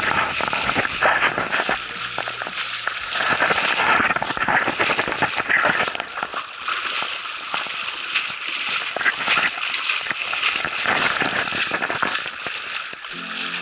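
Water splashing and crackling close to a camera held just above the surface as a stand-up paddleboard moves through the water: a dense, uneven hiss of spray.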